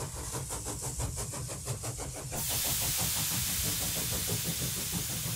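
Steam-machinery sound effect: a machine runs with a quick, even beat of about six a second, then a loud steady hiss of steam comes in about two seconds in, with the low beat carrying on beneath it.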